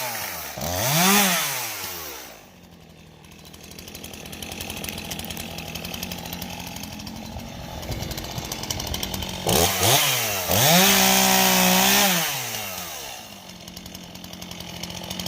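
Stihl chainsaw revving up and back down about a second in, idling for several seconds, then revving up again for a few seconds around the ten-second mark before dropping back to idle.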